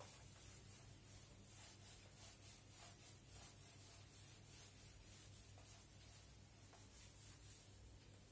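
Faint, repeated rubbing strokes of an eraser wiping a whiteboard, over a low steady hum.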